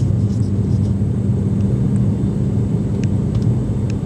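Turboprop airliner's engines and propellers droning steadily in flight, heard from inside the cabin: a deep, even hum over a rushing noise.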